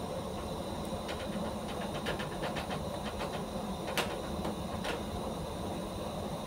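Steady engine-room machinery noise, a constant hum and hiss, with a few faint scattered clicks of hand tools working on the fuel filter cover bolts.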